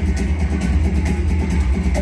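Dragon Train poker machine playing its bonus-feature music, with a steady heavy bass beat, as the feature wheel spins.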